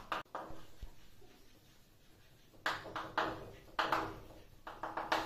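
Chalk writing on a chalkboard: a run of short scratchy strokes that starts about two and a half seconds in, after a brief tap at the start.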